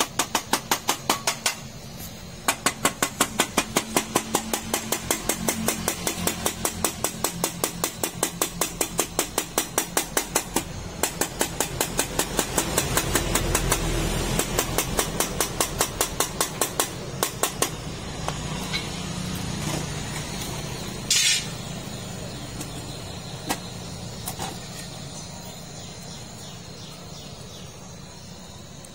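Wire brush scrubbing rapidly back and forth over the soldered seam of a brass radiator tank, several strokes a second with short pauses, over the steady hiss of a butane canister torch heating the seam to free the upper tank. The brushing stops a little past halfway, leaving the torch hiss, with one brief louder hiss later on.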